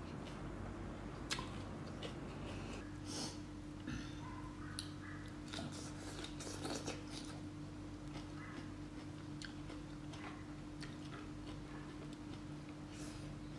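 Close-miked eating sounds of a person eating rice and pork by hand: chewing and lip smacking with scattered sharp wet clicks, thicker in the first half. A steady low hum runs underneath.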